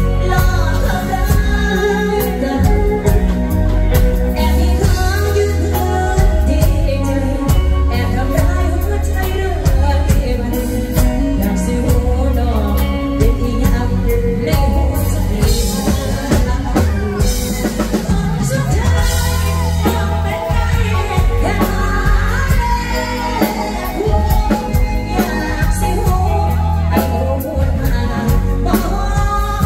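A woman singing into a microphone with a live full band: drum kit, bass and electric guitar, amplified through a PA system.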